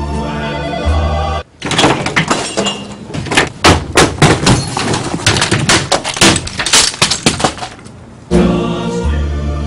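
Office equipment being smashed and thrown: about seven seconds of loud, repeated crashing and clattering of computer monitors and desk items. Background music plays briefly at the start, cuts off suddenly as the crashing begins, and comes back near the end.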